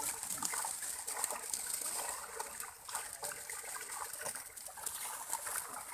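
Water splashing and trickling: many quick small splashes from fish thrashing in a crowded net, with water running off a plastic basket as fish are scooped out.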